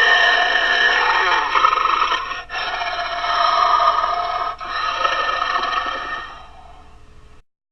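Homemade dinosaur call sound effect made from an altered human voice: three long calls back to back, the last one fading away before the sound cuts off.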